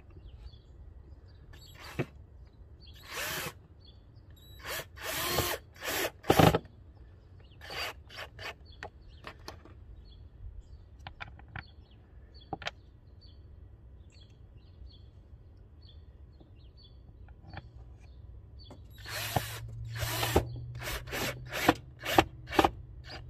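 Cordless drill-driver run in short trigger bursts, tightening the hose clamps on the car's air intake. There are a few bursts in the first seven seconds and a longer run of them near the end, with faint clicks between.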